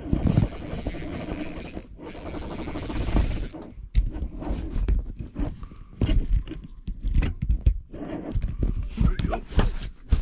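Close rustling and scraping of clothing and fishing gear against the camera microphone, dense for the first few seconds, then many irregular clicks and knocks as the rod and spinning reel are handled.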